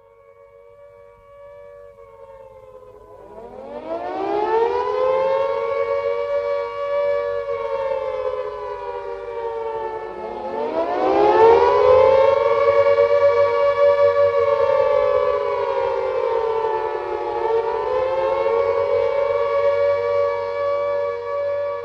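Air-raid siren wailing. It starts as a quieter steady tone, winds up in pitch and loudness about three seconds in, sags slowly, winds up again about ten seconds in, and dips and rises once more near the end.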